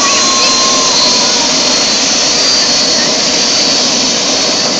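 Bell helicopter's turbine engine running on the ground with the rotor turning: a loud, steady rush with a high-pitched whine.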